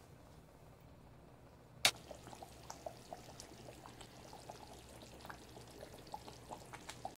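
Thick fish curry boiling in an open pan: scattered soft pops and blips of bubbles bursting, after a single sharp click about two seconds in.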